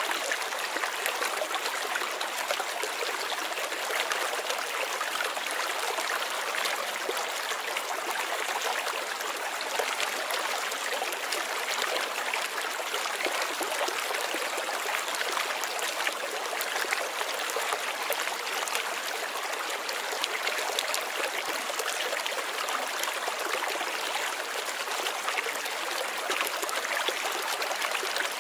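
Running water of a stream, a steady splashing trickle with no pauses.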